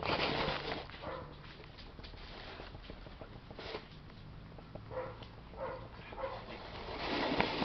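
German shepherd puppy giving a few short barks about half a second apart in the second half, with louder bursts of rustling noise at the start and near the end.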